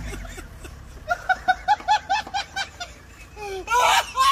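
A person laughing in a quick run of short, even 'ha' bursts, about seven a second, starting about a second in; a few more laughing sounds follow near the end.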